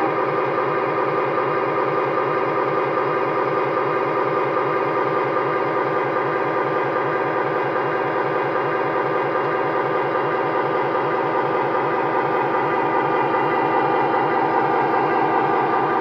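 MTH Protosound 3 sound system in a USA Trains F-3 model locomotive playing a diesel prime-mover sound through its speaker: a steady running engine with an even low rhythmic beat, growing a little louder near the end.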